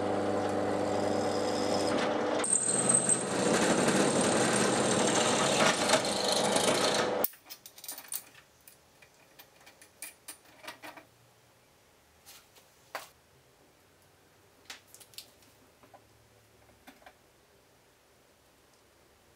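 Drill press motor running as the bit drills into a small metal part held in a drill press vise: a steady hum that turns louder and harsher about two seconds in, with a short high squeal. It stops after about seven seconds, and then there are light clicks and knocks of metal parts being handled.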